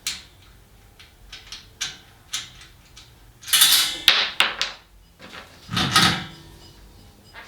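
Metal parts of a hose reel cart being handled during assembly: a scatter of small clicks and knocks, then two louder clattering rattles, about three and a half seconds in and around six seconds in, as the basket and hardware are worked into place.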